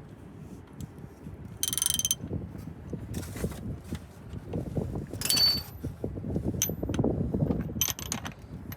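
Socket ratchet wrench clicking in three short bursts, with metal tools clinking and rattling in between, as work goes on under a truck during an oil change.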